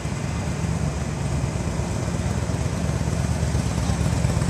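Steady low rumble of outdoor street ambience, with no distinct single event standing out.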